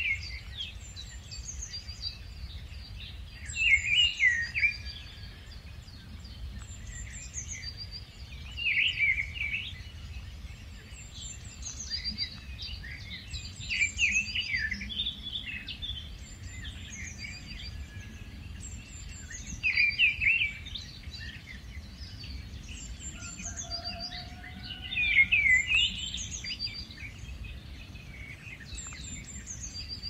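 Rufous-tailed scrub robin singing short, varied phrases about every five seconds, with fainter high chirps in between.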